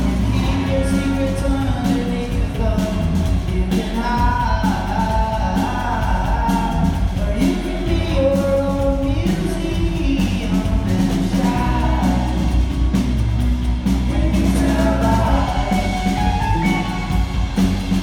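Live rock band playing a song with sung vocals, drums, bass and guitar, heard in a large hall.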